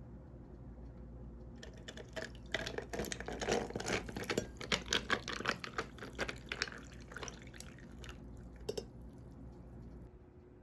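Liquid splashing and trickling in a quick, irregular patter for about seven seconds, starting a couple of seconds in and dying away near the end.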